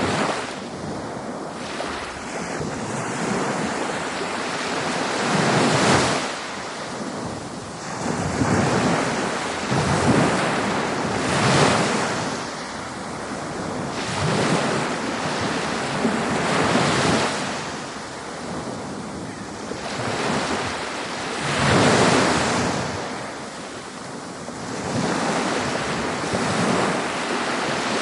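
Ocean waves breaking on a beach: steady surf wash that swells every few seconds as each wave breaks, with some wind on the microphone.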